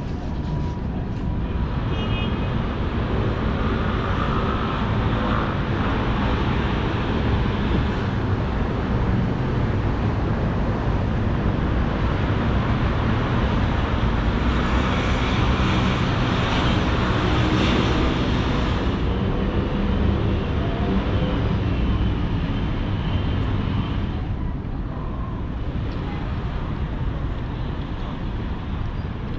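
Steady outdoor city ambience: a low rumble of road traffic that swells louder for a few seconds about halfway through.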